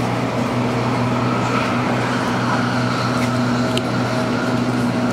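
Running noise inside the carriage of an MTR Tung Chung Line Adtranz-CAF train moving at speed: an even rumble of wheels on rail with a steady low hum.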